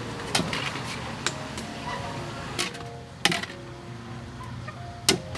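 About five sharp, irregular knocks of cookware at a large wok over a wood fire, the loudest about three seconds in and near the end, over a low steady hum.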